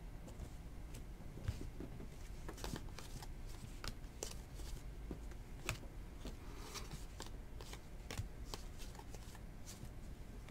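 A stack of trading cards being flipped through by hand, cards slipping and flicking against one another in quiet, scattered clicks.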